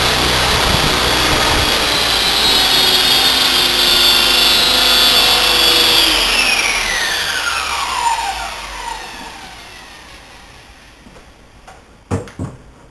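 Belt CP flybarless electric RC helicopter's motor, belt drive and rotors running with a steady high whine. About six seconds in the throttle is cut and the whine falls steadily in pitch and fades as the rotors spin down. Two short knocks near the end.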